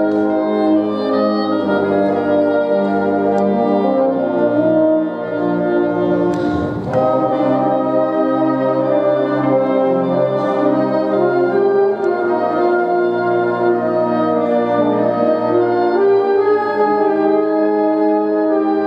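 Brass-led ensemble music: held brass chords that change every second or so, with a brief noisy crash about six and a half seconds in.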